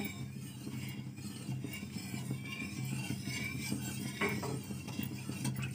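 Flat steel spatula stirring and scraping milk with tikhur starch around a metal kadai, quiet and continuous, over a steady low hum. The mixture is being stirred constantly so it doesn't stick to the pan and burn.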